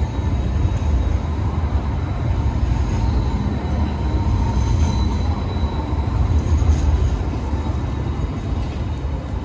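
Light rail tram running past on the street, a steady low rumble with a faint thin wheel squeal over it.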